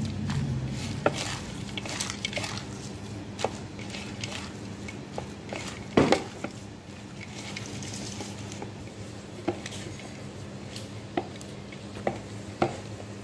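Hands kneading and mixing a crumbly paneer-and-cheese stuffing with crushed fried papad in a glass bowl: soft rustling and crunching, with scattered sharp clicks against the glass, the loudest about six seconds in. A low steady hum underneath.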